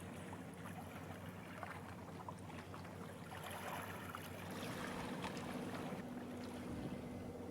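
A boat's engine running steadily with a low hum, with water sloshing and small clicks over it.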